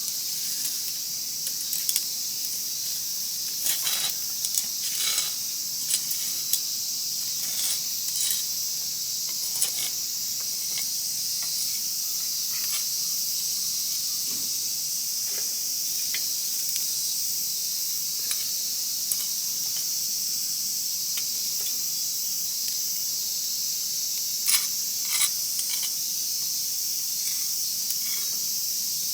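Wood fire crackling with scattered sharp pops, over a steady high-pitched hiss.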